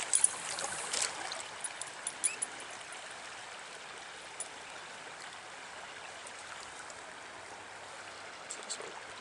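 Stream water running steadily around a wading angler, with a few small splashes or drips in the first couple of seconds.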